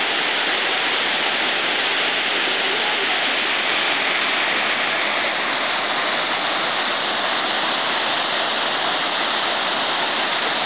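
Salmon River Falls, a 110-foot waterfall, rushing steadily with an even, unchanging sound.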